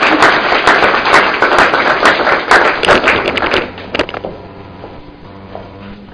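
Small audience applauding: dense, irregular clapping that dies away a little over halfway through, leaving a few scattered taps.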